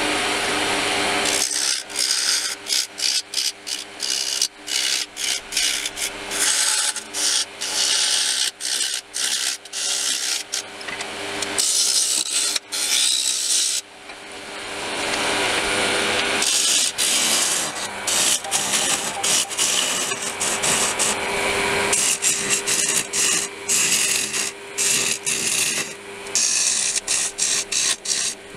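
Wood lathe running with a steady hum while a turning tool cuts a soft, crumbly green pear-wood blank, a scraping of wood fibres in many short passes with brief breaks between them.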